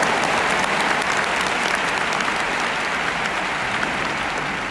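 Large arena crowd applauding at the end of a tennis point, a dense, steady clapping that begins to die down near the end.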